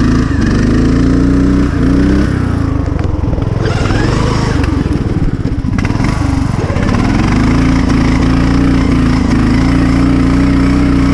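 Riding lawn mower's engine running hard as the mower is driven through snow. Its speed dips about six seconds in and climbs back up, then holds steady.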